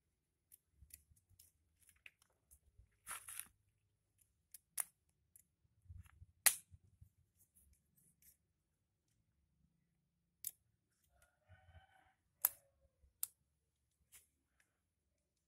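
Scattered sharp clicks and snaps of wires, a clamp and small tools being handled while test leads are hooked up to a car alternator, with the two loudest snaps about six seconds and twelve seconds in.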